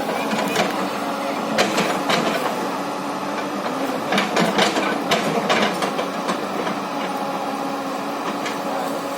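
Hyundai hydraulic excavator's diesel engine running steadily, with bursts of sharp knocks and clanks from the working machine about one and a half seconds in and again around four to six seconds in.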